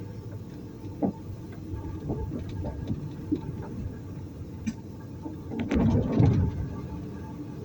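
Truck engine running with a steady low rumble, scattered knocks and rattles over it, and a louder surge of rumbling about six seconds in.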